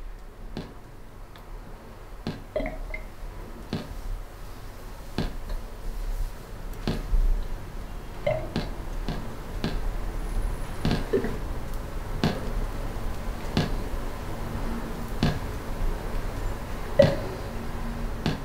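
Water dripping, one drop about every second and a half, some landing with a short pitched plink, over a steady low hum.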